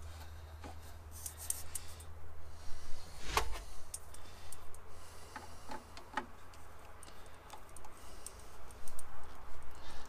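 Scattered clicks and small knocks of metal lathe parts being handled and fitted, with one louder knock about three seconds in. A low steady hum stops at about the same moment.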